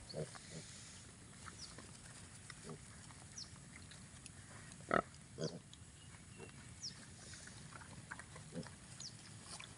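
Piglets grunting while they forage: short, scattered low grunts, with the loudest about five seconds in.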